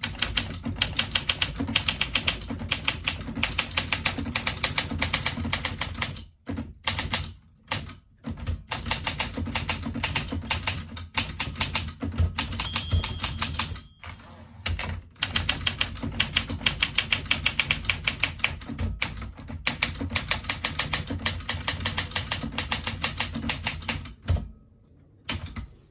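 Olympia SM9 manual portable typewriter being typed on quickly: a rapid run of sharp keystrikes as the type bars hit the platen, broken by a few short pauses.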